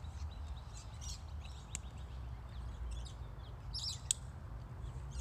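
Small birds chirping now and then over a low steady rumble, with a single sharp click about four seconds in as the canvas pannier's strap buckle is fastened.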